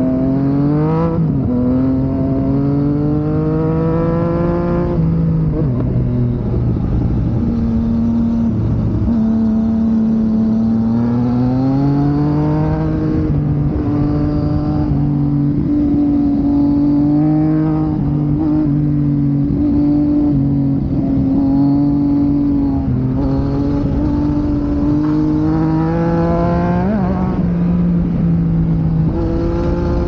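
Sport motorcycle engine under way: the revs climb and fall with several gear changes, including one about a second in, with a long stretch of steady cruising revs in the middle.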